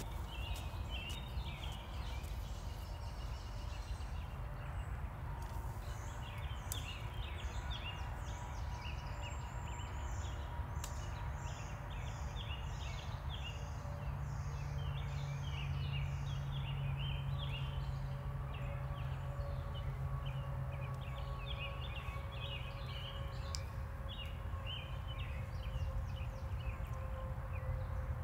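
Wild birds chirping and singing, many short calls overlapping, with a run of quick repeated high notes partway through, over a steady low hum.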